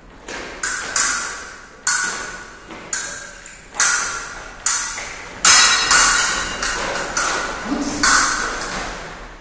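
Steel fencing blades clashing again and again, each strike a sharp ringing clang. The strikes come about once a second at first, then faster, several a second, in the second half.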